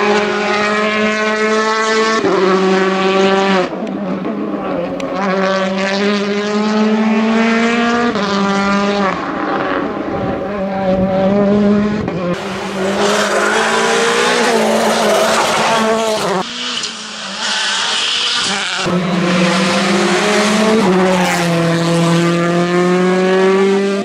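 World Rally Car turbocharged four-cylinder engines accelerating hard. The pitch climbs, then drops at each upshift, with short lifts off the throttle. The sound changes abruptly several times as one car's run gives way to another's.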